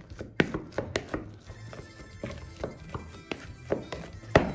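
Hand-held potato masher knocking and pressing boiled potatoes in a plastic bowl: about six irregular sharp knocks, over quiet background music.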